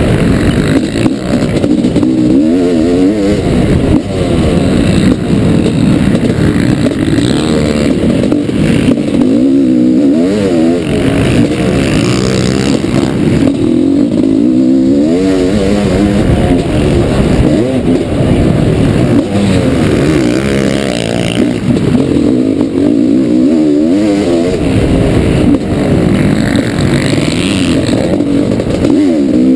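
1989 Honda CR500's single-cylinder two-stroke engine revving hard and falling off again and again as the bike is ridden around a motocross track, the pitch climbing and dropping every second or two.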